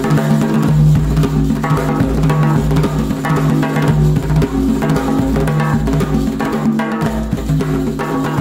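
Percussion music: quick drum strokes over a steady low sustained note.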